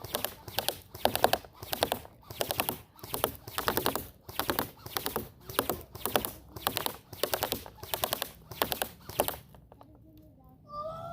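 Footsteps crunching on dry ground at an even walking pace, about two steps a second, stopping near the end. A brief voice-like call follows.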